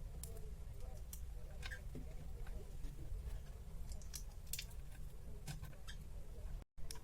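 Faint, scattered sharp clicks and ticks from small parts and tools being handled, over a low steady hum.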